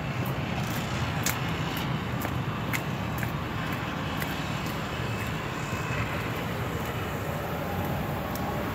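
City street traffic, cars driving past on a snow- and slush-covered road, heard as a steady low rumble and hiss, with a few sharp, irregular ticks.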